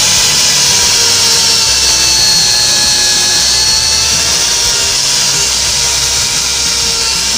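Electric angle grinder with a sanding disc running steadily as it sands the bare wood of a panel door: a loud, steady high whine whose pitch wavers slightly as it is pressed against the wood.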